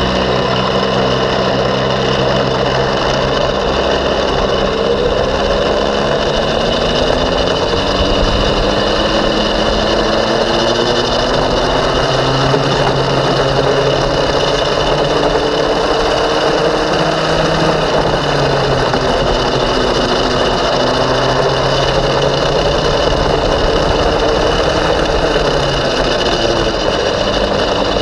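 Racing go-kart engine heard on board at speed, its pitch climbing over several seconds as it accelerates and dropping back as it slows for the corners, again and again.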